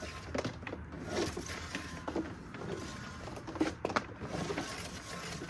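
Handling noises from a Numatic Henry vacuum cleaner's plastic parts: scattered clicks and light knocks, in two small clusters near the start and about two thirds of the way through.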